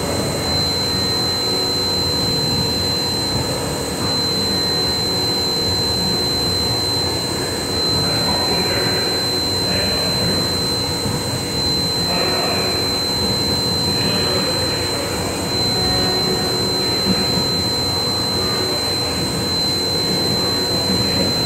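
CNC machine running: a steady, even mechanical noise with a constant high-pitched whine.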